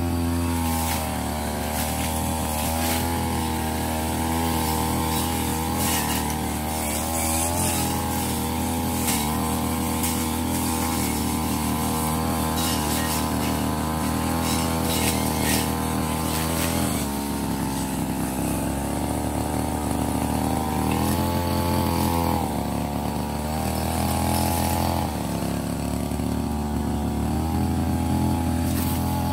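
Ogawa CC33 brush cutter's small two-stroke engine running at high revs, with a metal blade cutting through overgrown grass. The engine pitch sags and recovers twice, around the middle and again near the end, with scattered sharp ticks over the engine note.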